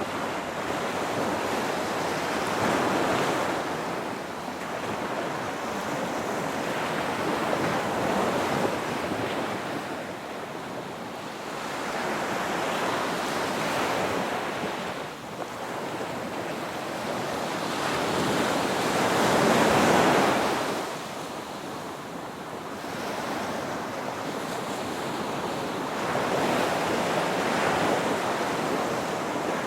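Ocean surf: waves breaking and washing in, swelling and falling away in slow surges every several seconds, the strongest about two-thirds of the way through.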